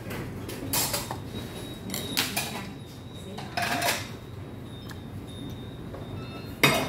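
Eating at the table: a few short crisp crunches as a breaded fried pork cutlet is chewed, and clinks of stainless-steel tableware, the loudest a single sharp clink near the end.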